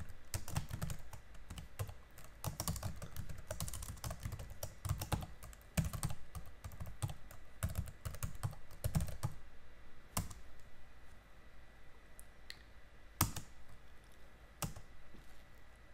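Typing on a computer keyboard: a quick, dense run of key clicks for about the first nine seconds, then a handful of separate keystrokes spaced a second or two apart.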